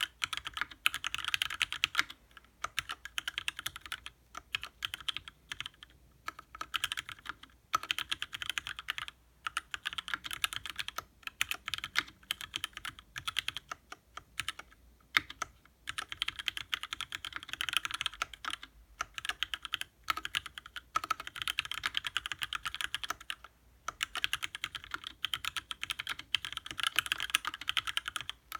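Continuous fast typing on a mechanical keyboard with lubed Gateron Ink switches, 60 g springs and GMK keycaps in an aluminium TKL case: dense key clacks in runs of a few seconds, broken by brief pauses.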